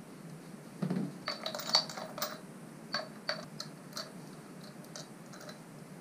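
Light metallic clinks and clicks, about a dozen spread over roughly five seconds, some ringing briefly: a steel bicycle disc brake rotor and its Torx bolts being handled and set down.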